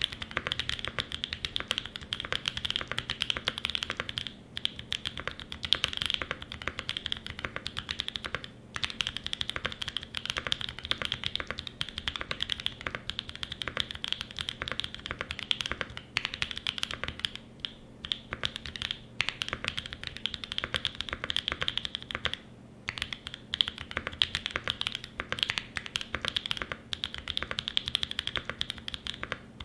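Fast, steady typing on a Mode 80 mechanical keyboard with lubed Holy Boba franken switches, an FR4 plate and GMK keycaps: a dense stream of keystrokes broken by a few brief pauses.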